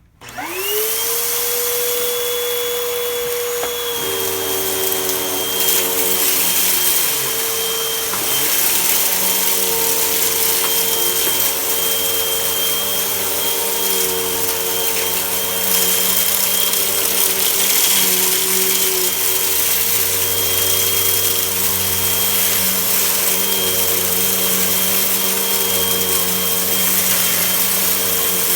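Vacuum cleaner switched on, its motor spinning up quickly to a steady high whine, then running while picking up dirt. About four seconds in the hum changes and deepens, and around eight seconds in the motor's pitch briefly drops and recovers.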